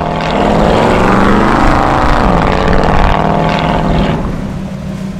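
Hot rod's engine revving hard as the car accelerates away, its pitch climbing, dropping at a gear change about two seconds in, then climbing again. About four seconds in it gives way to a steadier, quieter low hum.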